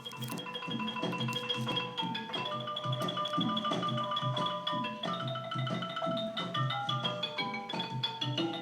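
Background music with a steady beat and a busy melody of short notes.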